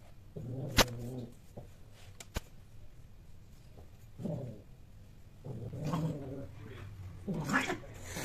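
Cats yowling and growling in several low, drawn-out calls, the sound of cats in a mating encounter. A sharp click about a second in stands out above the calls, with a fainter one a little later.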